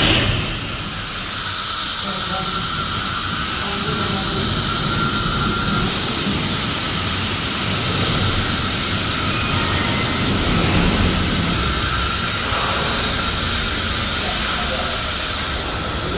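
Steady hissing noise over a low rumble, with no distinct knocks or rhythm.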